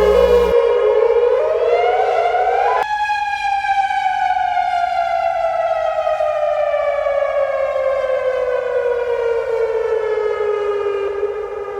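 Civil defense siren: its wail rises for about two seconds, then after a sharp click it winds down in one long, slow fall in pitch.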